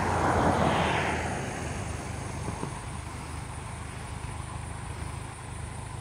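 1941 Farmall H tractor's four-cylinder engine running smoothly, purring at low speed as it drives, fading a little. A brief rushing noise sits over it in the first second or so.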